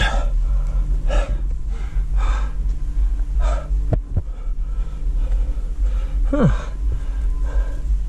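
A climber's heavy breathing close to the microphone, in even puffs about once a second, over a steady low rumble. About six seconds in there is a short falling grunt.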